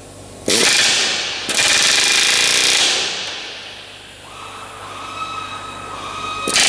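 Pneumatic workshop tools used on aluminium aircraft structure, running in short loud bursts: two about half a second and a second and a half in, then a quieter steady whine from about four seconds, and another loud burst near the end.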